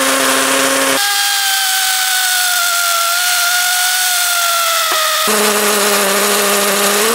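ES Industrial LH216K cordless hammer drill in hammer mode, boring a 6 mm masonry bit into a dense cement wall: a steady motor whine over a noisy grinding haze. About a second in the whine jumps higher for a stretch shown at triple speed and sinks slowly under load, then drops back to its normal pitch after about five seconds.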